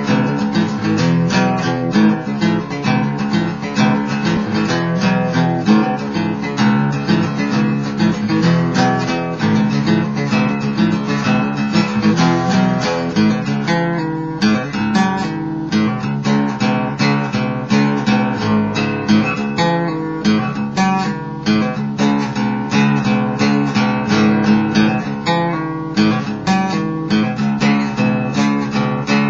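Acoustic guitar played with a pick: a continuous run of quick picked notes mixed with strums.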